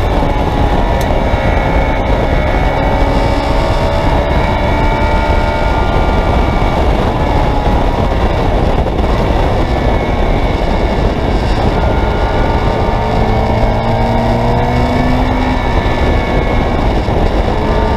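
Open-cockpit, Honda-engined track car at speed, heard from on board: the engine note climbs and drops several times as it accelerates and eases off, over heavy wind noise on the microphone.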